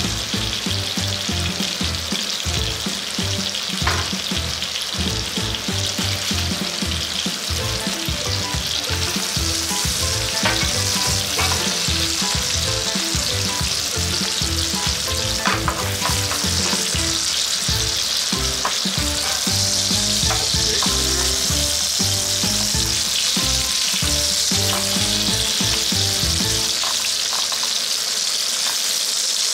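Chicken thigh, bacon, mushrooms and garlic cloves sizzling steadily in oil in a frying pan. A few sharp clicks come from tongs touching the pan.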